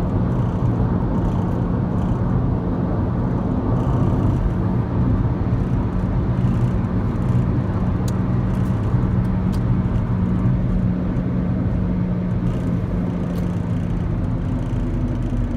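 Steady low mechanical hum with a held low tone underneath, of the kind a running vehicle makes.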